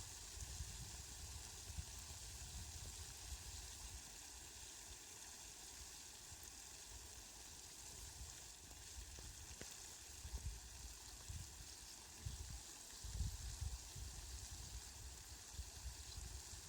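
Steady hiss of falling rain, faint, with irregular low rumbles that come and go, most often in the last few seconds.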